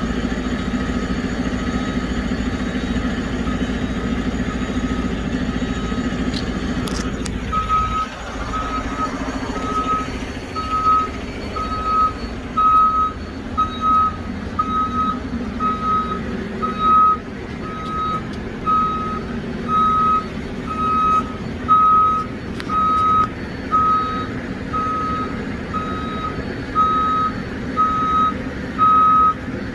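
Roll-off truck's engine running under load as a roll-off container is pulled up onto its tilted bed. Its reversing alarm beeps steadily at one pitch, about one and a half beeps a second, and becomes much louder about seven seconds in.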